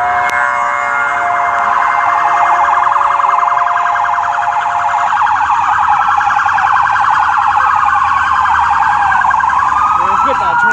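Police car siren sounding on an emergency run, a fast warbling yelp for most of the time that changes near the end to a slower rising and falling wail.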